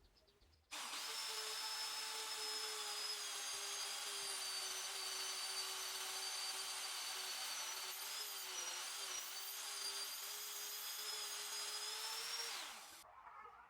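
A power tool running at steady speed with a high whine, starting suddenly about a second in, its pitch dipping slightly a little past the middle, then winding down and stopping near the end.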